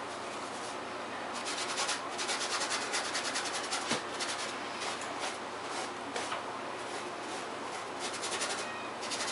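Paintbrush scrubbing paint onto the painting's surface: quick, scratchy back-and-forth strokes that come in bursts, the busiest from about a second in to about four seconds, and again near the end.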